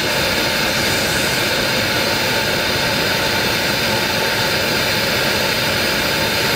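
Burner of a mesh-caged camping heater running with a steady, loud roaring hiss.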